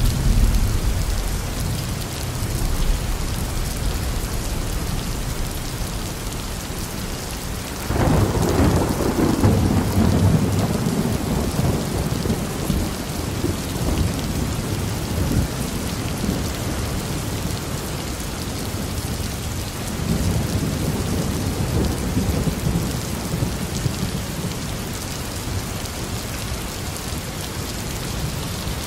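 Steady rain with rolling thunder: a low rumble at the start, a sudden sharper clap about eight seconds in that rolls on for several seconds, and another rumble swelling around twenty seconds in.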